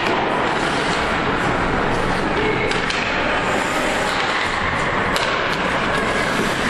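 Ice hockey game noise in a rink: a steady wash of skating and arena sound, with a few sharp clacks of sticks on the puck.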